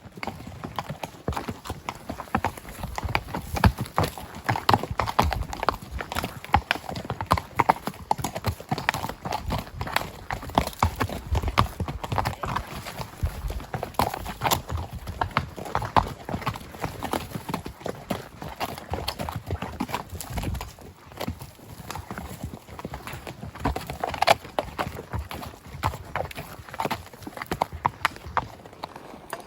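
Hoofbeats of a spotted saddle horse gelding: a dense, quick run of clip-clops.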